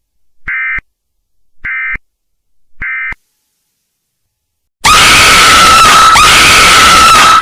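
Emergency Alert System end-of-message signal: three short bursts of warbling digital data tones, just over a second apart. About five seconds in, a very loud, harsh screeching noise starts with a wavering high tone in it and cuts off sharply near the end.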